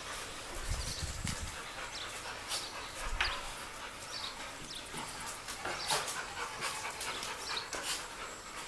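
Pit bull puppies and an adult dog scuffling on a tiled floor: soft whimpering and panting with scattered sharp clicks of claws on the tile, and a couple of low thumps in the first few seconds.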